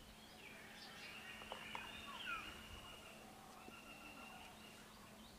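Faint bird calls: thin whistled notes, the loudest a short falling call about two seconds in, over quiet outdoor ambience with a faint steady low hum.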